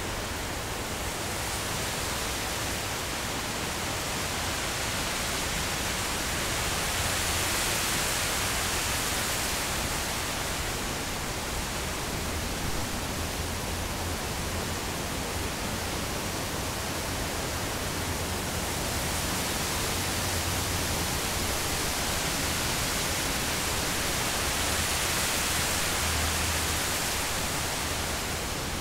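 Wind blowing through reeds and trees, a steady rustling hiss that swells in two gusts, about a quarter of the way in and again near the end, over a low rumble.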